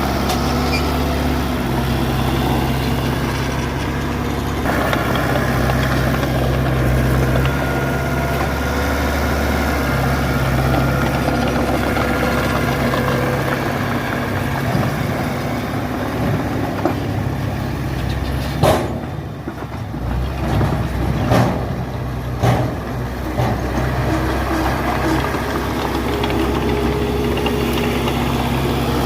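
Heavy diesel engine of earthmoving machinery running steadily, with a few sharp metallic clanks about two-thirds of the way through.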